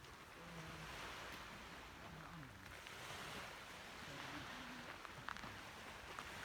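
Faint seaside ambience: small waves washing in and out in slow swells, with wind noise.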